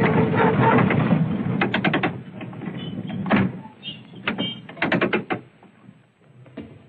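Open-top double-deck electric tram running on its rails: a steady rumble, then a run of sharp clacks from the wheels, fading over the last second or so.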